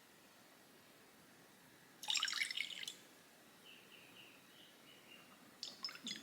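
Water splashing in the kitchen for about a second, starting about two seconds in, followed by a few faint high chirps and light clicks near the end.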